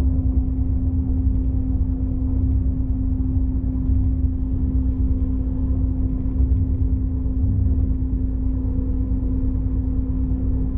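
Inside the passenger car of a moving SBB intercity train: a steady low rumble with a constant hum.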